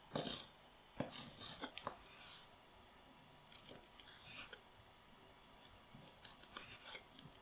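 Chef's knife slicing soaked dried shiitake mushrooms on a wooden cutting board: faint taps of the blade meeting the board, with soft cuts through the caps, coming in small scattered clusters.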